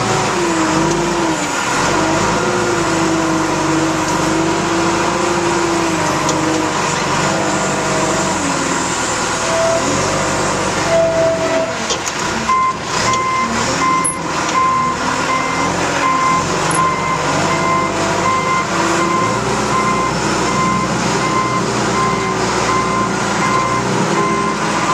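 John Deere 310 backhoe loader's diesel engine running under load, its pitch rising and falling as the loader works. About halfway through, the reversing alarm starts beeping steadily, about one beep a second, as the machine backs up.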